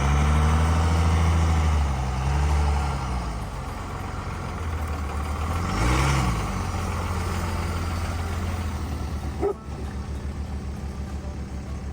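Old Dodge pickup truck's engine under load in snow. It revs up twice, at the start and again about six seconds in, then settles to a steadier low running note with a slight pulse. A short sharp clack comes about nine and a half seconds in.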